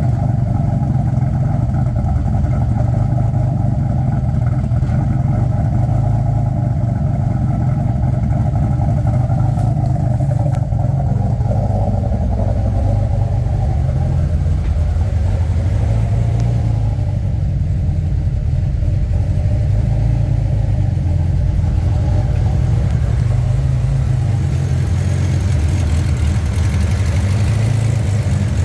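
Turbocharged 3800 V6 (L67) with an aftermarket cam, running on E85, idling steadily.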